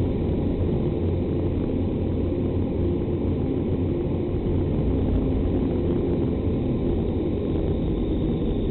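Steady rush of air from an indoor vertical wind tunnel, heard from inside the flight chamber with the airflow blowing across the microphone.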